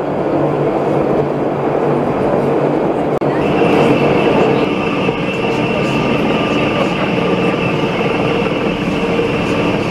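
Electric rack railcar of the Pilatus Railway running on the cogwheel track, heard from on board: steady running noise of wheels and rack drive, with a high steady whine setting in about three and a half seconds in.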